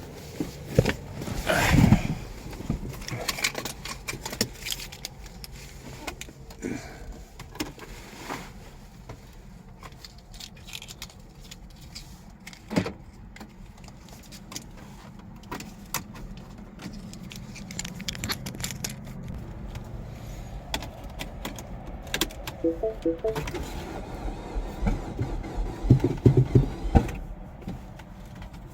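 Keys jangling, with scattered clicks and knocks, as the key is used in an attempt to start a 2012 Mini Cooper Clubman. No engine cranks or runs, and the owner thinks the battery is dead. About three-quarters of the way through comes a brief run of beeps, and near the end a quick burst of rapid clicking.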